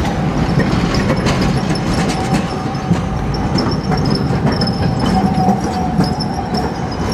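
Long articulated low-floor electric tram rolling past close by, its wheels clicking over the rails under a continuous rumble, with a steady high whine.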